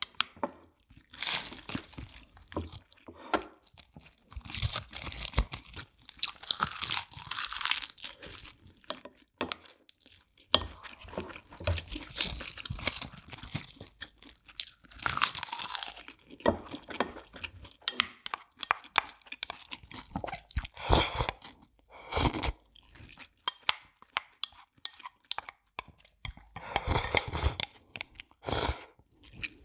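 Close-miked eating: repeated crunching and chewing of rice wrapped in crisp roasted seaweed (gim) with soy-marinated crab, in a run of separate bites with small sharp clicks between them.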